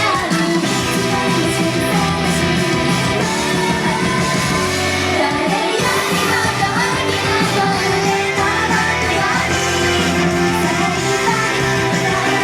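Japanese idol pop song performed live: singing over loud, steady band accompaniment.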